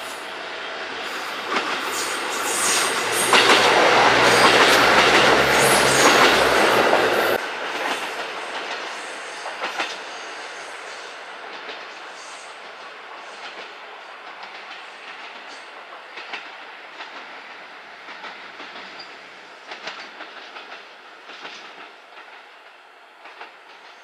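JR Central KiHa 85 series two-car diesel multiple unit passing through a station without stopping. Its diesel engines and wheels build over a few seconds to a loud peak, drop off sharply about seven seconds in as it goes by, then the clickety-clack of the wheels over the rail joints fades as the train moves away.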